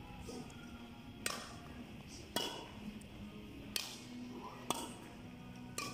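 Five faint, sharp taps or knocks at irregular intervals, echoing in a large hall, over a faint steady hum.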